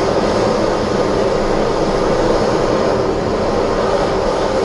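Handheld kitchen blowtorch flame burning with a steady rushing hiss, browning the mornay sauce on a fish fillet.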